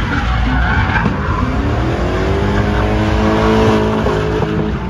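V8-swapped BMW E30 drifting in donuts, its rear tyres skidding. The engine revs climb from about a second and a half in, hold high, then break off near the end.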